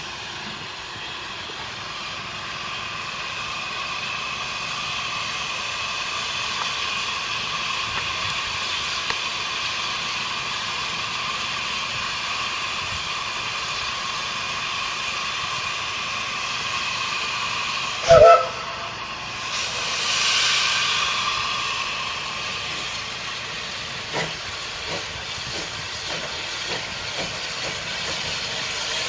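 Narrow-gauge steam tank locomotive standing and hissing steam steadily, with one short, loud whistle blast about 18 seconds in, followed by a swell of escaping steam as it moves off, with faint soft knocks.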